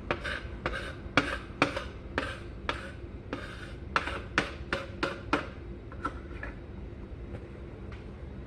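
Light clicks and taps of kitchenware on a counter as cheese pieces and small dishes are handled and set down. The taps come quickly, about two a second, for the first five seconds, then only a few more.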